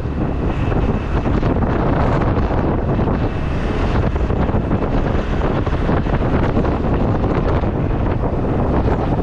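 Steady wind rushing over the microphone of a moving motorcycle, with vehicle noise underneath.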